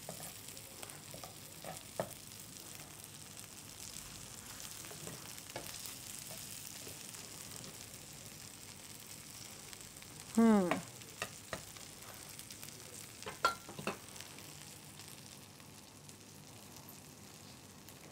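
An egg omelette with onions and vegetables sizzles steadily in a frying pan on a gas burner. A metal slotted spatula clicks and scrapes against the pan as the omelette is worked loose from the bottom. About ten seconds in there is one brief, loud squeak that falls in pitch, followed a few seconds later by a few sharp clicks.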